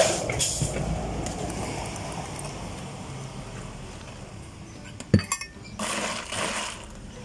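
Mocha poured from a glass measuring jug over ice into a plastic cup, with the ice clinking as the pour fades away. A sharp click comes about five seconds in, followed by a few smaller knocks as the cup is handled.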